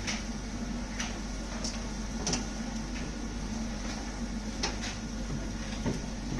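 A few light clicks and knocks, scattered irregularly over a steady low hum.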